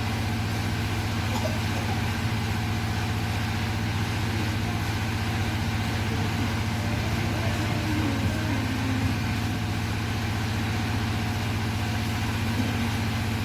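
A large engine idling steadily, a low, even drone that holds the same level throughout.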